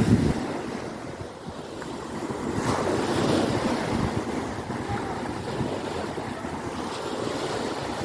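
Sea waves washing in, with wind buffeting the microphone.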